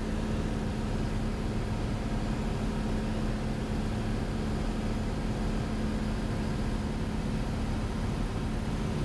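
Cessna 182's piston engine and propeller droning steadily in flight, heard inside the cabin, with a steady low hum under the rushing noise.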